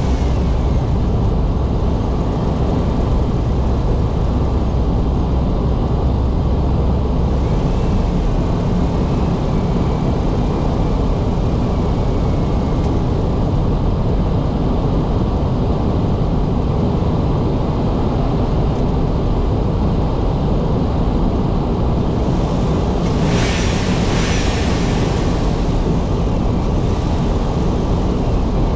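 Car driving on a snow-covered road: steady low rumble of tyres and engine, with a brief hiss about three-quarters of the way through.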